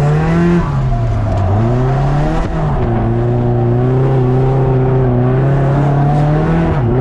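Nissan S13 drift car's engine under hard throttle: revs fall about a second and a half in, climb again, hold steady for several seconds, then drop sharply and recover near the end.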